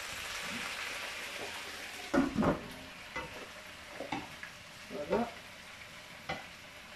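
Chicken and potatoes sizzling in a frying pan, stirred with a wooden spatula. About two seconds in, a loud knock as the glass lid goes on and the sizzle becomes quieter, then scattered taps and scrapes of the spatula in a second pan of vegetables.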